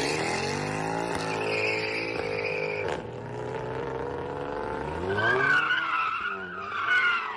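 A car engine revving hard, its pitch rising and falling, while tyres squeal as a car spins out on the road. The squeal is loudest in the last two seconds.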